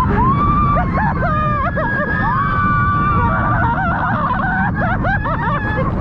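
Many riders screaming and shouting together on a roller coaster, with a heavy rush of wind on the microphone underneath.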